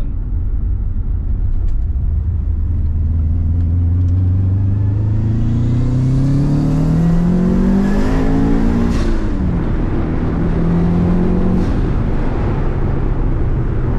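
A 2005 Subaru Outback XT's turbocharged flat-four, heard inside the cabin, pulls through the gears of its freshly rebuilt five-speed manual. Its pitch climbs steadily under acceleration, drops sharply at an upshift about nine seconds in, and drops again near the twelfth second.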